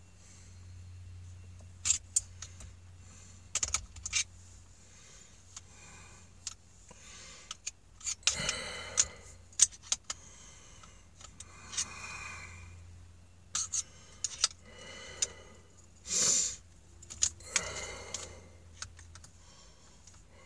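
A screwdriver working at the retaining screw inside a Makita drill's quick-release chuck: irregular metallic clicks, taps and scrapes, with a few longer rasping bursts.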